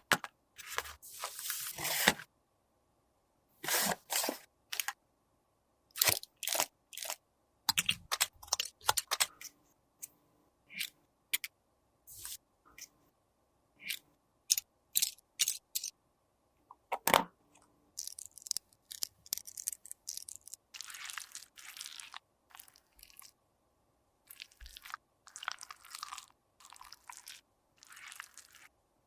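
Close-up crunching and scraping of makeup being crushed and worked by hand. It comes as irregular bursts of sharp clicks and short gritty scrapes with quiet gaps between, and the scrapes run longer near the end.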